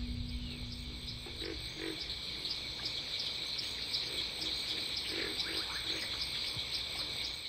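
Insect chorus: a steady high trill pulsing about three times a second, with a few short low calls around one and a half seconds in and again around five seconds in. A low held note left over from the music fades out in the first second and a half.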